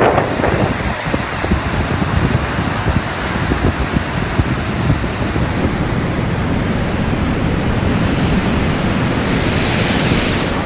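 Storm at sea on a ship's bow: strong wind rushing over the microphone mixed with heavy waves and spray breaking against the hull, a steady loud noise that turns hissier near the end.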